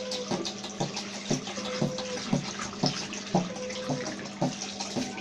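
A tap running into a sink during handwashing, a steady rush of water. Under it there is a steady low hum and a regular beat about twice a second.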